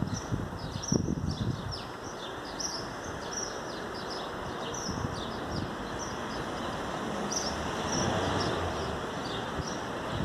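Small birds chirping in many short, high calls over a steady outdoor background hiss that swells a little near the end.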